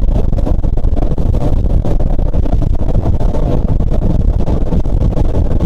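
A boat's motor running steadily, heard from on board as a continuous low rumble.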